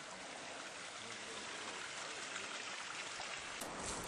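A small forest creek running, with a steady rush of water. Near the end a low rumble and a few clicks come in.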